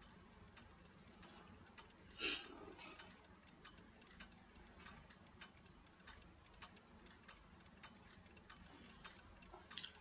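Faint, steady ticking of a clock, timing a ten-second pause for thought, with one brief louder sound about two seconds in.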